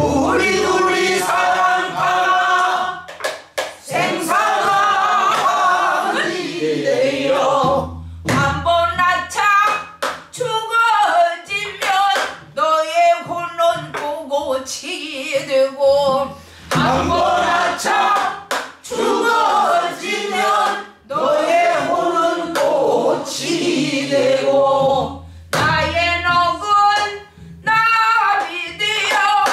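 A woman singing pansori in a jungmori passage, long phrases with wide wavering and bending pitch in a strained, throaty voice. She keeps time with sharp stick strokes on a janggu hourglass drum.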